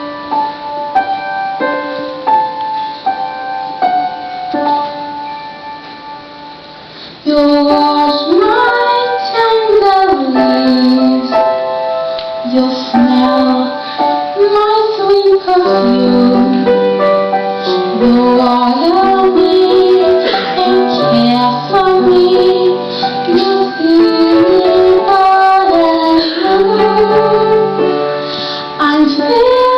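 Soft keyboard accompaniment playing slow held chords and fading, then about seven seconds in a woman starts singing a slow ballad over it.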